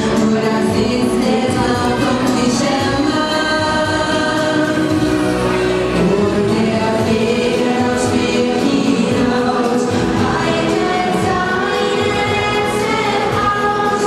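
Music with a choir singing held chords.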